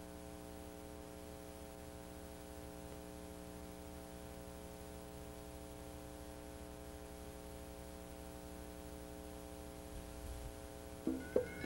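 Steady electrical mains hum with faint hiss from an old videotape's soundtrack, playing under a silent title card. Near the very end, music with knocking percussion cuts in.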